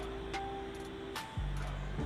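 Background music with sustained notes; the chord and bass change about halfway through.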